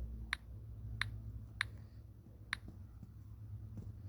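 Four short, sharp key-tap clicks from a phone's on-screen keyboard at an uneven typing pace, typing a search word letter by letter, over a faint low hum.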